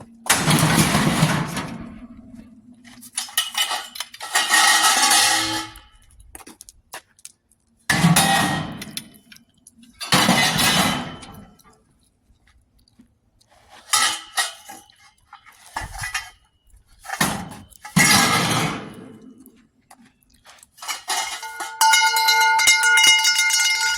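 Scrap metal being thrown onto a pile in a truck bed: a series of loud, clattering metal crashes every two to three seconds. The last one leaves a ringing metallic tone near the end.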